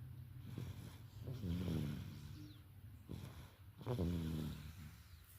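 Baby snoring: two snores about two and a half seconds apart, each a short sound with a falling pitch.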